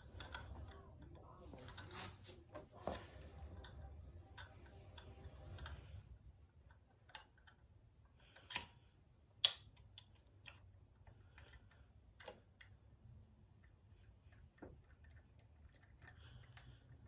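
Scattered clicks and light metal knocks from hand tools working at the underside of a pit bike's engine, with two sharper knocks about a second apart near the middle.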